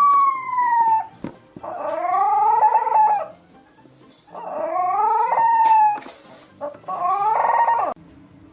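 A dog howling in four long drawn-out calls: the first slides down in pitch, the next two rise and waver for nearly two seconds each, and a shorter one comes near the end.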